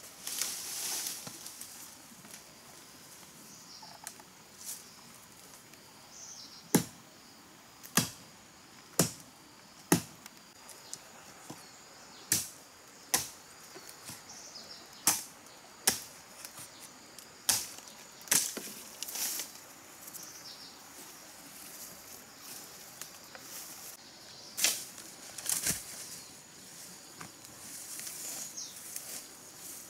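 Wood being chopped with a blade: about a dozen sharp strikes, unevenly spaced roughly a second apart, starting about seven seconds in and stopping a little before the end.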